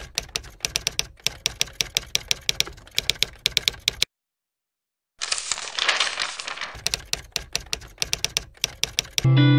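Typewriter sound effect: rapid key clicks, several a second, stopping for about a second just past the middle, then a short rushing noise before the clicking resumes.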